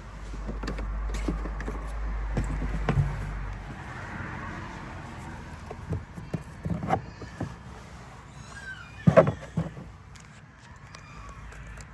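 Low rumble of a passing car for the first few seconds, then scattered clicks and knocks of a webbing strap and its metal cam buckle being handled. The loudest knock comes about nine seconds in.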